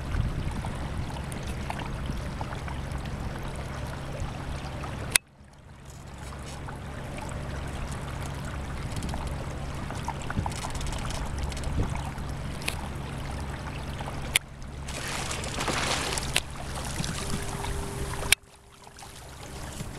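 Minn Kota 50 lb-thrust electric trolling motor humming steadily as it pushes a Zodiac inflatable dinghy, with water rushing and lapping along the hull. The sound breaks off abruptly and restarts a few times.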